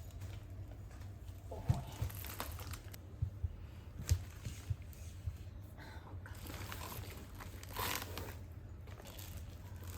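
Faint household handling sounds: scattered soft knocks and light rustling, with a brief swish about eight seconds in, over a low hum.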